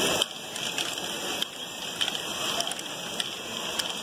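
LEGO Great Ball Contraption modules running: a steady rattle of small plastic balls rolling through LEGO lifts and conveyors, with scattered sharp clicks as balls drop and knock against the parts.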